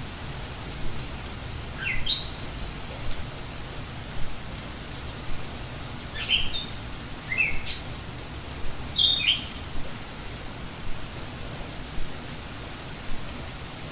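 Steady rain falling with a bird calling in short rising chirps: one call about two seconds in, then a run of chirps between about six and seven and a half seconds, and another pair around nine seconds.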